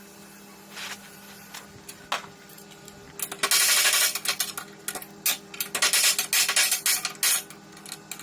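Metalworking noise: two loud, harsh bursts with many clicks, one about three seconds in and a longer one about six seconds in, over a steady low hum.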